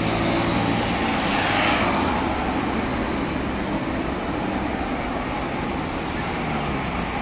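Steady road traffic passing close by: cars, a motor scooter and a city bus, with tyre rush and engine hum. An engine's hum fades out in the first second or so, and the rush of a passing vehicle swells about two seconds in.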